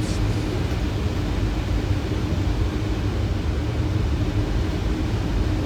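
Steady flight-deck noise of a Boeing 737 on final approach with gear down and flaps 30: a constant rush of airflow over a deep engine rumble, with a steady low hum.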